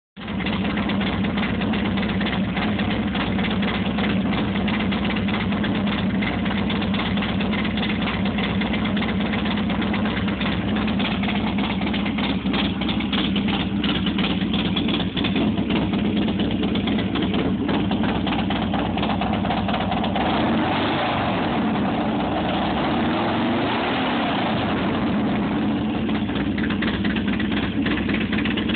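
A 2001 Buell X1 Lightning's air-cooled V-twin idles very loudly through an unbaffled Force exhaust. In the last third its pitch rises and falls a few times as it is revved.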